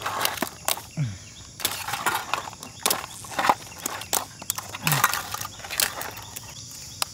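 Hard crab and lobster shells clicking, clattering and scraping against each other and a metal basin as the live seafood is handled, in a run of quick, irregular knocks. A steady high insect drone sits behind it.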